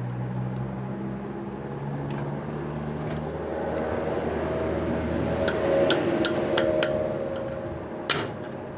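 Hammer striking a steel drift to drive a new ball bearing (6203) into an aluminium motorcycle engine case half: several light taps about halfway in, then one hard metallic strike near the end.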